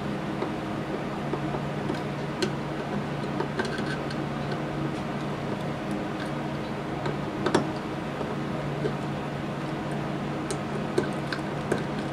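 Hand screwdriver driving the head screws into a small 12-volt compressor's finned cylinder head: scattered light clicks and ticks, the sharpest about halfway through, over a steady low hum.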